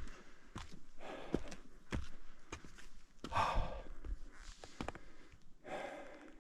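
A hiker breathing hard on an uphill trail: three long, heavy breaths out about two and a half seconds apart, with footsteps in between.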